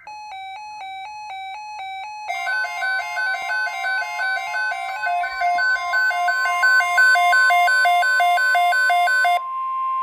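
Two NOAA weather alert radios sounding a tornado watch alert. A rapid alternating two-tone chime starts first; about two seconds in, a second radio's pulsing alert beeps join over a steady high attention tone. The beeps stop shortly before the end, leaving the steady tone.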